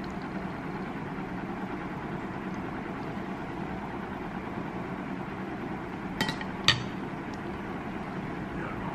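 A metal spoon clinks twice against a ceramic plate, the second clink louder, over a steady background hum.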